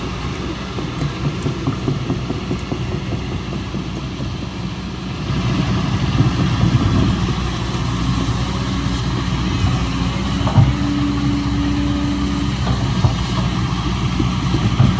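Excavator's diesel engine running steadily, growing louder about five seconds in. A steady whine joins for a few seconds in the middle, and a single sharp knock comes near there too.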